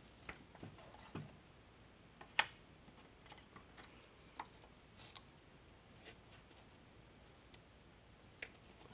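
Faint, scattered light clicks and taps of small pieces of sheet brass being picked up, handled and set down on a concrete bench, the loudest about two and a half seconds in.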